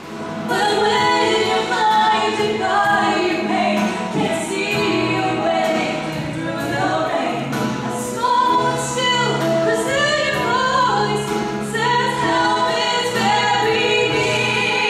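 Two young female voices singing a song together into handheld microphones. The singing starts about half a second in.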